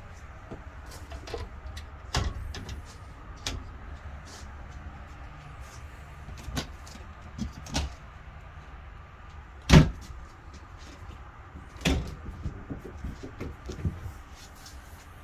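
Cabinet and appliance doors in a travel-trailer kitchen being opened and shut: a string of clicks and knocks, with the loudest bang about ten seconds in.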